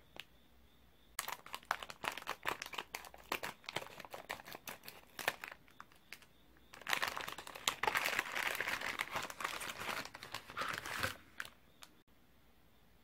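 Plastic candy-kit packet crinkling as it is handled, then a louder, denser stretch of crinkling and tearing from about seven seconds in as the packet is opened and its plastic-wrapped contents are taken out; it stops about two seconds before the end.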